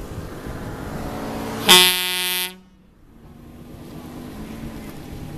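Horn of the Kubiki Railway railcar Hoji 3, one short blast of under a second that cuts off suddenly: a departure signal.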